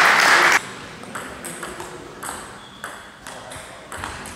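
Table tennis ball clicking off bats and the table in a rally, a sharp tap every few tenths of a second. Before that, a loud rushing noise cuts off abruptly about half a second in.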